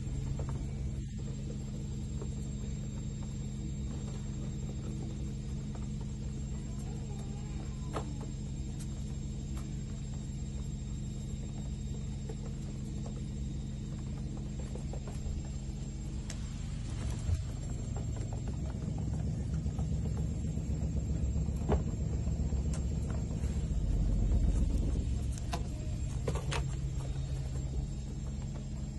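A steady low hum, with a few short light taps and clicks scattered through it.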